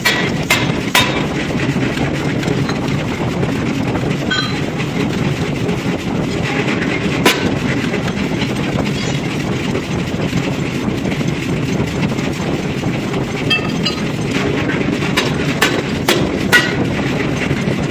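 Forging press machinery running with a steady loud drone, with a few sharp metal clanks, several coming close together near the end.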